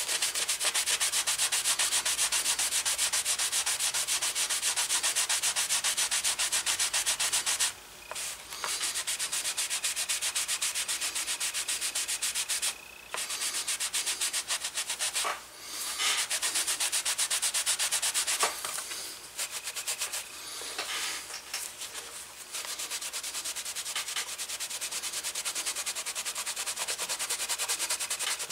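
A cloth rubbed rapidly back and forth over a black leather holster, a fast steady scrubbing that pauses briefly a few times and is a little softer near the end. The friction buffs in a wax-bearing leather conditioner to shine up the freshly dyed leather.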